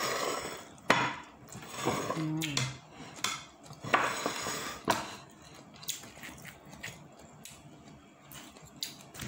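Plates and tableware clinking and knocking on a table while food is handled by hand on the plate, with a few sharp clicks and rustling between them.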